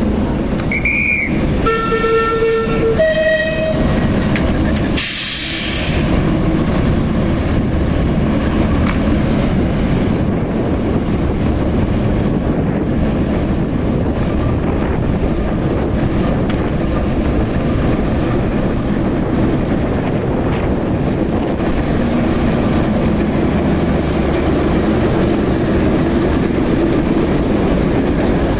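A short whistle about a second in, then two notes of a diesel locomotive's horn and a brief loud hiss of air. After that comes the steady running of the locomotive's diesel engine as the train moves along the platform.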